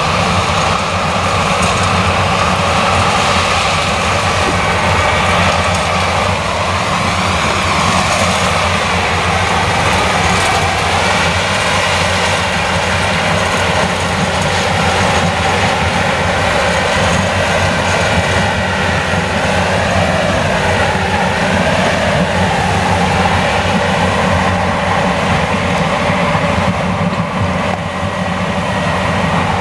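Claas Lexion 760 TT combine harvester on tracks running steadily while harvesting maize with a nine-row corn picker header: a dense engine and machinery hum, with a whine that drifts up and down in pitch.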